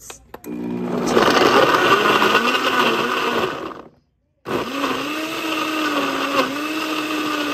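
The blender built into a Mr. Coffee 3-in-1 coffee maker is running, chopping fruit and coffee into a smoothie. It runs for about three and a half seconds, stops abruptly for half a second, then starts again.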